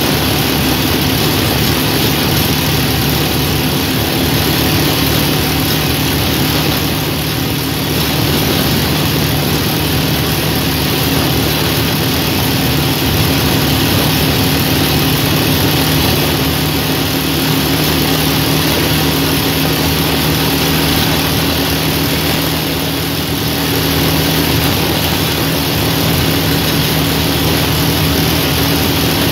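Motorcycle engine running steadily at cruising speed, with heavy wind rush over the microphone.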